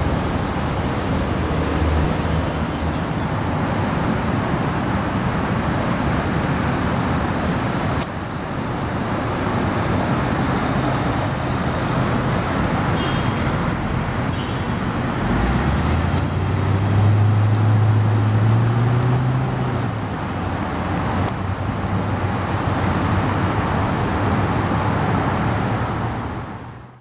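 Steady traffic and street noise, with a Mercedes-Benz S63 AMG's biturbo V8 rising in pitch as the car pulls away about halfway through.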